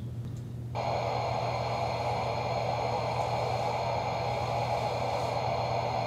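Steady hiss of test noise from a loudspeaker during a transmission loss measurement through a 1/4 inch aluminium panel, switching on just under a second in, over a low steady hum.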